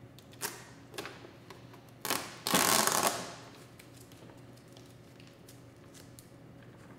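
Duct tape pulled off the roll with a loud tearing rasp lasting about half a second, a little over two seconds in. Small clicks and taps come before it as the tape is handled and pressed onto a plastic motorcycle fairing.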